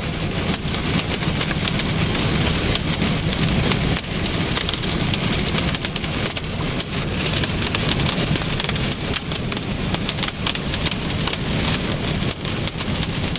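Large hailstones pelting a vehicle's roof and windows in a thunderstorm: a loud, unbroken clatter of many hard hits over a rushing wash of wind and rain.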